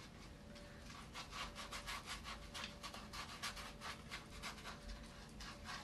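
Stiff hard-bristle paintbrush scrubbing wet acrylic paint onto a canvas: a faint, quick run of scratchy back-and-forth strokes, several a second.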